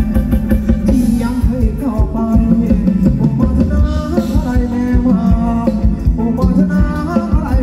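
Live band playing Thai ramwong dance music: a singer over a steady, driving beat.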